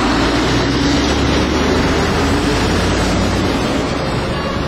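Diesel lorries driving past close by in convoy: a steady low engine drone with tyre and road noise.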